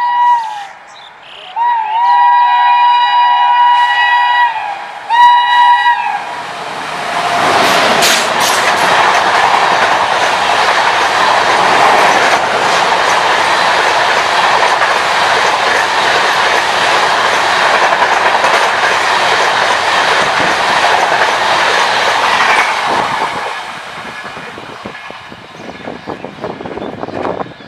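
Locomotive horn of the Howrah–Dhanbad Coalfield Express sounding three times: the end of one blast, a long blast of about three seconds, and a short one. The train then passes at speed with a loud rush and rapid wheel clatter for about fifteen seconds, dying away near the end.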